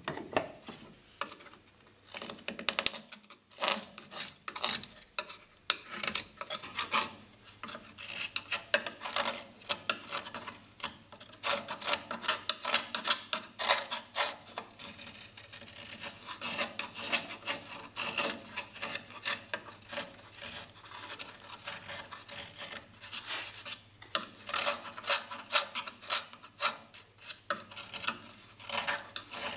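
A narrow-tipped Japanese kuri kogatana carving knife paring the handle of a wooden kuksa cup: a quick, irregular run of short dry scraping cuts, with a brief pause about three seconds in.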